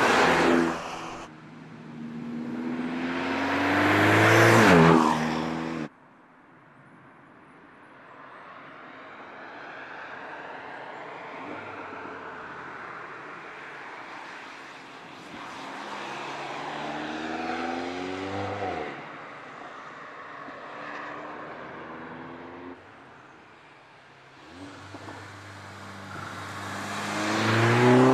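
Mercedes-AMG CLA 45 4MATIC Shooting Brake's turbocharged 2.0-litre four-cylinder accelerating hard past the roadside, its note rising and swelling to a loud peak twice: once about four seconds in, when it cuts off abruptly, and again near the end. In between, the engine is quieter and further off, rising again through the revs.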